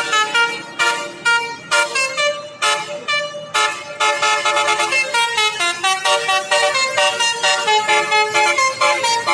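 Basuri 'telolet' multi-tone bus horn playing a programmed melody. Loud, rapid horn notes, several sounding together, with sharp accented blasts about once a second for the first few seconds, then a faster steady stream of short notes.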